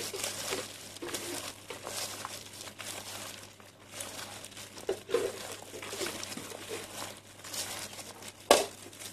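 Thin plastic food-prep gloves crinkling and rustling as hands toss and squeeze a shredded vegetable salad in a plastic bowl, with one sharp click near the end.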